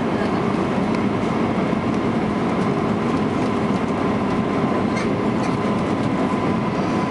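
Steady cabin noise inside an Airbus A320 airliner on approach: the engines and rushing airflow make an even roar with a faint steady whine over it.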